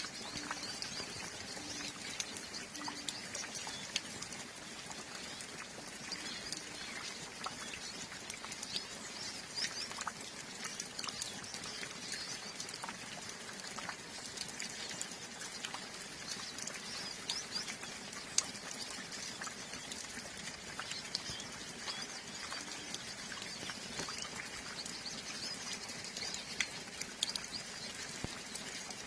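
Light steady rain with scattered water drips, under the continuous twittering chatter of a flock of hooded siskins.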